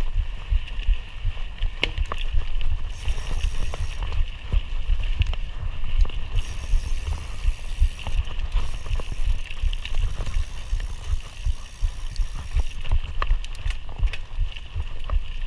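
Mountain bike ridden along a dirt cross-country trail: a continuous run of rattles, clicks and knocks from the bike over rough ground, under a heavy, uneven low rumble.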